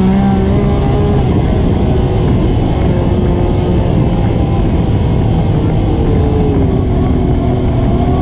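ATV engine running under way, its pitch shifting with the throttle and easing lower about two-thirds of the way through, over a steady rumble.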